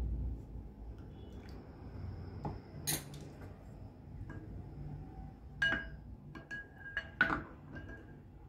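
Wooden spoon knocking against a glass bowl while stirring curd, several sharp clinks with a short ring.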